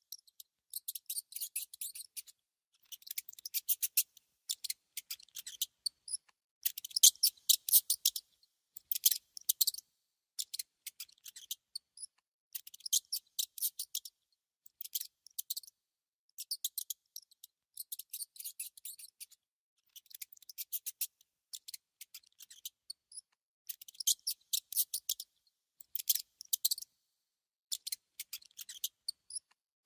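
A mouse gnawing on food: bursts of rapid, crisp little clicks, each burst about a second long, repeating with short pauses.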